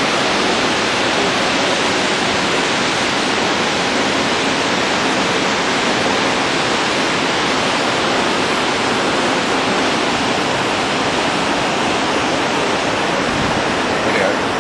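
The steady, loud rush of Victoria Falls' falling water, an even hiss-and-roar with no let-up.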